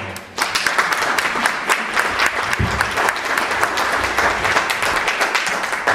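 Audience applauding, starting about half a second in as dense, steady clapping.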